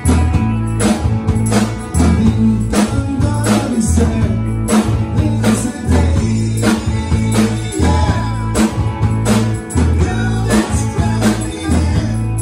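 Live rock band playing: electric guitars, bass and drum kit keeping a steady beat, with a tambourine shaken along.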